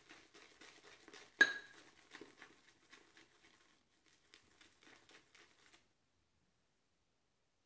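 Synthetic shaving brush working a soft shaving soap into a pasty lather in a bowl: a fast, wet crackling that stops about six seconds in. One sharp ringing clink about a second and a half in.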